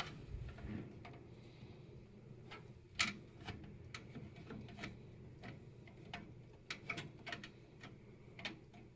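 Light, scattered clicks and taps as a motherboard is handled and set down onto the standoffs inside a steel PC case, the loudest click about three seconds in.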